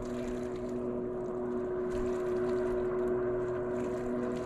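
A small motor on the fishing boat running with a steady hum of several held tones.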